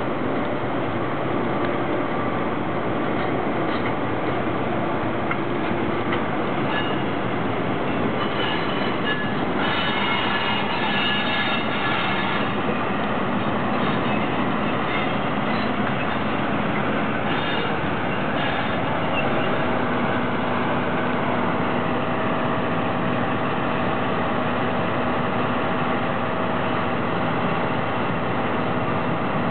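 ED76 electric locomotives and blue sleeper coaches rolling past on the rails with a steady rumble. Wheels squeal in high tones about ten to twelve seconds in, and a steady hum joins in the second half.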